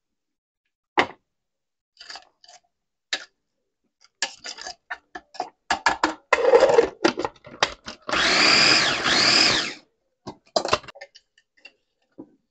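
Electric mini chopper chopping onion: clicks and knocks as it is handled, then the motor is pulsed twice, whirring for about two seconds with its pitch rising and falling in each pulse.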